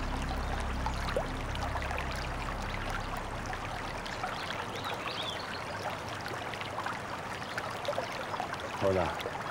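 Steady rushing of flowing water, like a stream, under low background music that fades out in the first few seconds. A short voice sound comes in just before the end.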